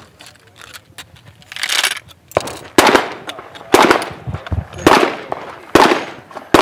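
A reproduction Spencer carbine in .56-50 centerfire fired five times, about one shot a second as the lever and hammer are worked between shots, each shot loud and sharp with a short echo. A brief rustling noise comes before the first shot.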